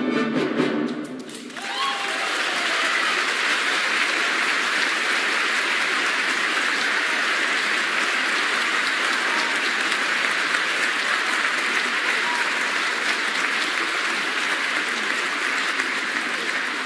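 The orchestra's last chord dies away in the first second and a half, and steady, dense audience applause follows.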